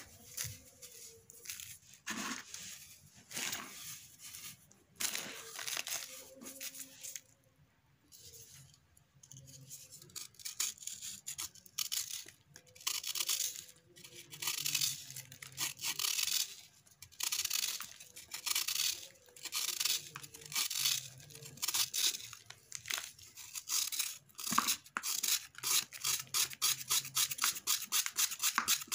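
Dry, gritty crumbling of a powdery sand-and-cement mix by hand, then a kitchen knife blade shaving a dry sand-cement ball in short, rasping scrapes as powder falls away. Near the end the strokes come fast and even, about four a second.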